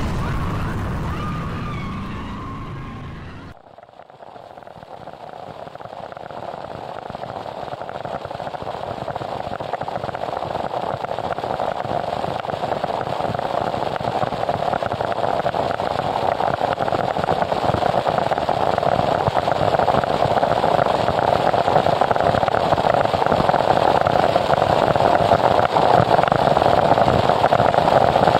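Noise music. A track of dense static with wavering high tones fades out about three seconds in, and the next track comes in as an even wall of static noise that swells and grows steadily louder.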